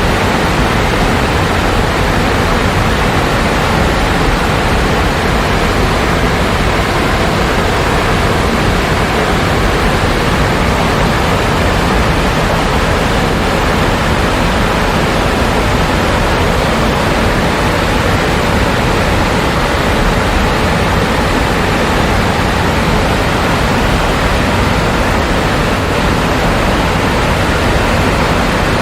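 Steady, loud rush of water falling over a tiered waterfall.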